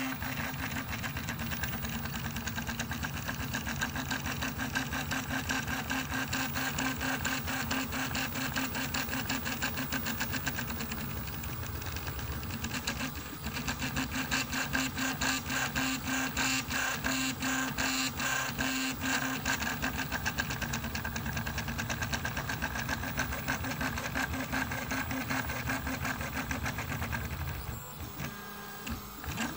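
Rebel II HD FDM 3D printer printing at speed: its stepper motors whir and buzz in a fast, busy rhythm as the print head moves, with steady motor tones underneath. The sound briefly eases about halfway and drops quieter near the end.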